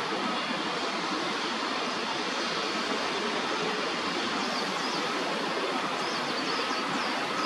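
Steady background rumble of city traffic, with a few faint, short, high bird chirps in the second half.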